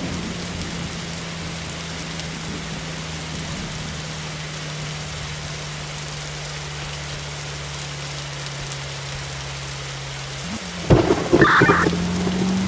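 Steady rain falling, with a low steady engine-like hum underneath. A little after ten seconds the hum rises in pitch and several loud knocks come in quick succession.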